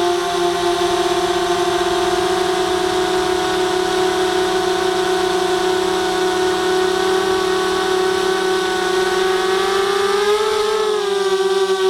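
ZMR250 FPV quadcopter's brushless motors and propellers whining at a steady pitch in flight, heard from its onboard camera. About ten seconds in the pitch rises and wavers as the throttle changes while it turns and dives toward the field.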